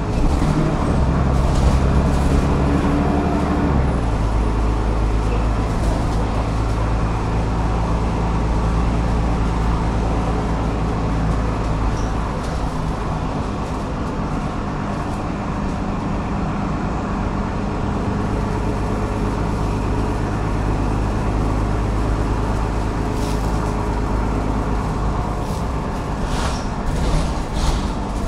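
Cummins ISLe8.9 diesel engine and ZF 6HP604C six-speed automatic gearbox of a double-decker bus, running under way and heard from inside the passenger cabin. The engine note changes about four seconds in, and a few short rattles come near the end.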